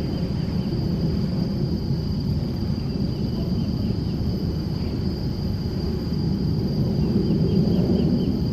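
Steady low rumble of open-air beach ambience, swelling a little near the end, with a few faint high chirps about three seconds in and again near the end.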